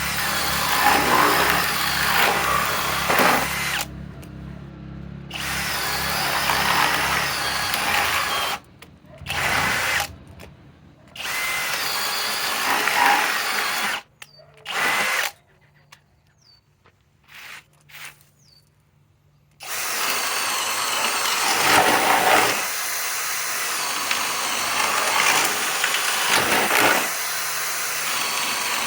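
Masterforce Boost cordless drill boring into 2x6 wood, run in several bursts with short stops, a few seconds of quiet past the middle, then one long unbroken run to the end.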